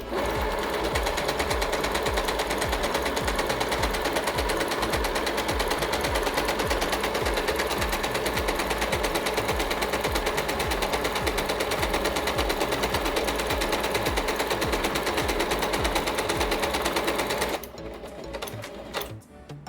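Yamata digital sewing machine stitching at a steady speed, the needle mechanism running in a rapid, even rhythm. It stops near the end.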